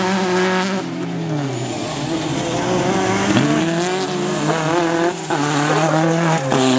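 Autocross race car engines running hard, the revs repeatedly rising and falling, as a car comes past close by.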